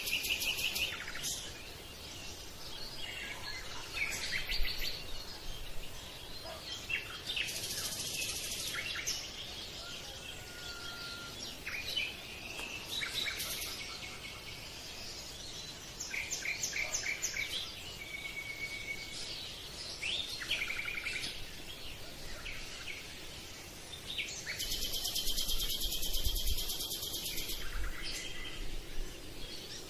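Several birds chirping and singing: short whistled notes and fast trills, with a long dense trill near the end, over a steady faint background hiss.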